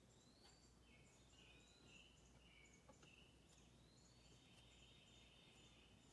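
Near silence: faint low room hum, with faint high chirps rising in pitch and repeating about every second and a half.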